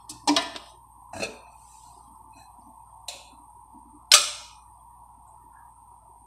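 Kitchen clatter of a metal wok and utensils: four sharp knocks, the loudest about four seconds in, over a steady hiss.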